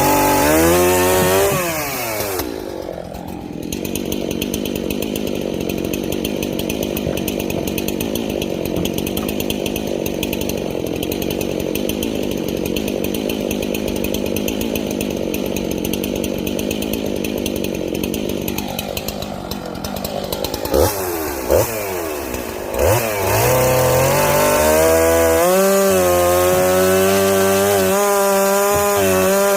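Two-stroke chainsaw cutting sweet gum firewood: it revs up, bogs into a long cut of about fifteen seconds with the chain rasping through the wood, blips a few times, then runs at high speed again near the end.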